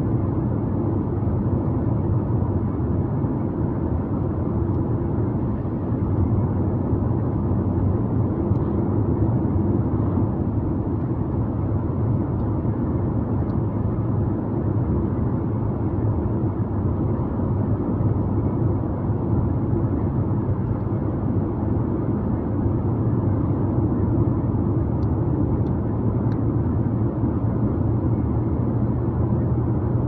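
Steady low rumble of a car driving along the road.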